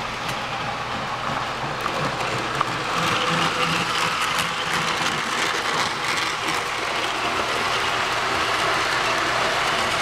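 Model train of streamlined passenger cars rolling past on the layout track: a steady rumble and hiss of wheels and running gear on the rails, growing louder about three seconds in.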